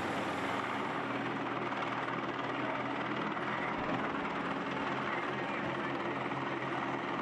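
Steady motor drone of the race vehicles around a group of cyclists, with an even hiss over it from tyres on a wet road.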